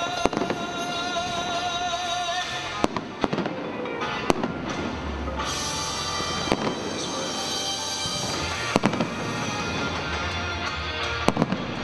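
Aerial firework shells bursting: several sharp bangs at uneven intervals, over music.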